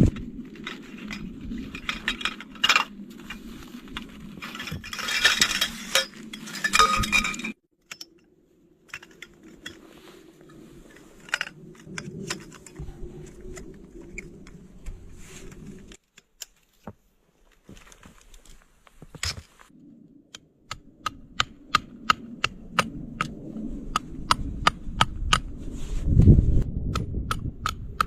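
A series of sharp, light clinks and knocks, ending in a run of quick, evenly spaced clicks, about two to three a second, over the last several seconds.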